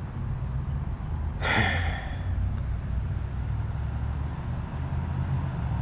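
Mobility scooter moving along a paved path: a steady low hum from its electric drive and tyres rolling on asphalt. About a second and a half in comes a short voice sound from the rider.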